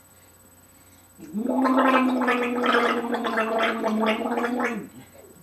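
A man gargling to clear ground cinnamon from a dry mouth: one steady, fluttering gargle that starts a little over a second in and lasts about three and a half seconds.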